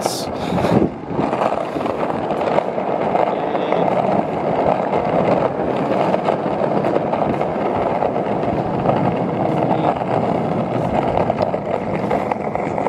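Cruiser skateboard's wheels rolling down a rough, patched asphalt road: a steady, loud rumble.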